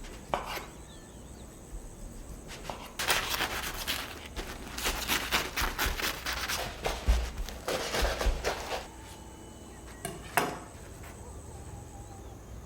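Crisp, crunchy bread crust crackling in a dense run of small cracks for about six seconds, with a single knock near the start and another near the end.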